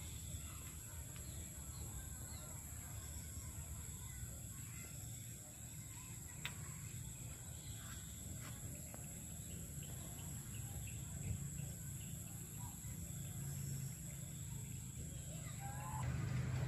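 Outdoor ambience: faint, scattered bird chirps over a low, steady rumble, with a steady high-pitched tone above and a single sharp click near the middle.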